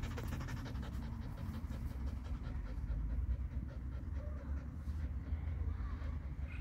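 Red fox panting quickly right up against the microphone, with a steady low rumble on the microphone underneath.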